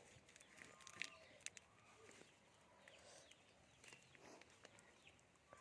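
Near silence: faint rustles and a few soft clicks from plastic wrapping being handled and pulled off, with faint bird chirps.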